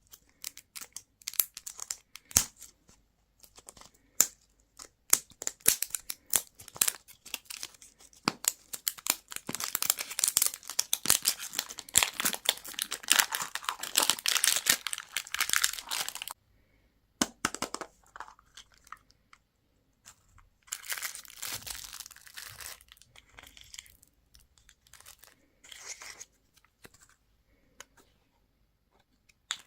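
Crinkly candy and toy packaging being handled, torn open and unwrapped by hand. It starts as scattered sharp crackles, then becomes a dense continuous crinkling that stops suddenly about halfway through, followed by a few shorter spells of crinkling.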